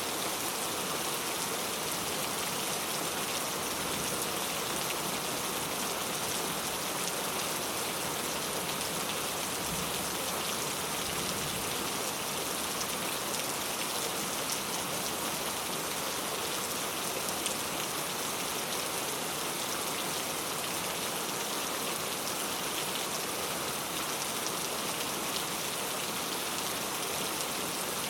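Heavy rain falling steadily: a dense, even hiss of many drops with no let-up.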